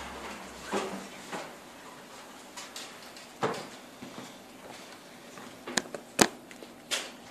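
Scattered knocks and clicks of a microphone being handled and set up, about five in all, the loudest a little after six seconds in.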